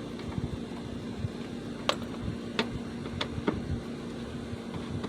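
Scattered sharp clicks and taps of a Phillips screwdriver working the screws out of a minivan's tail-light housing, four or five in a few seconds, over a steady low hum.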